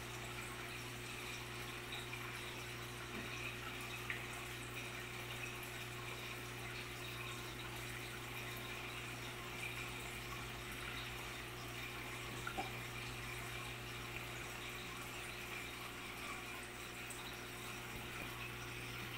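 Steady trickle and splash of aquarium water circulating, over a steady low hum, with a couple of faint clicks.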